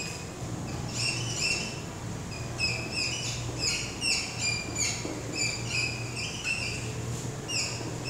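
Whiteboard marker squeaking against the board as words are handwritten: quick irregular runs of short, high, slightly falling squeaks, one for each pen stroke, over a steady low hum.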